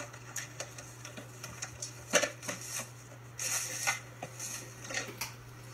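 Kitchen handling sounds: light clicks and knocks of containers and utensils being moved, with a sharper knock about two seconds in and a brief hissing rustle around three and a half seconds, over a steady low hum.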